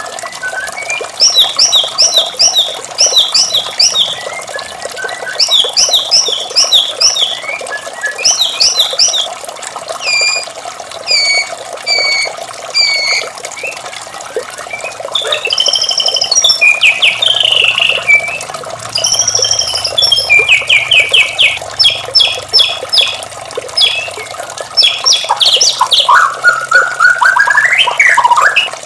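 White-rumped shama singing in short bursts of fast repeated notes and clear whistles, with a rising run of notes near the end, over a steady rush of running water.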